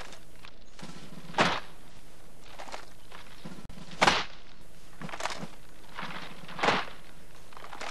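A short, sharp noise repeating about every two and a half seconds, with fainter ones in between.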